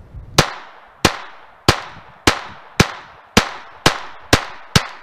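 Glock 44 .22 LR pistol fired in quick, steady succession: nine sharp shots about half a second to two-thirds of a second apart, each with a short ringing tail.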